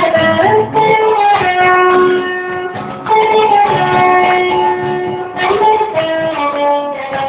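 Band music with a guitar carrying a melody of long held notes.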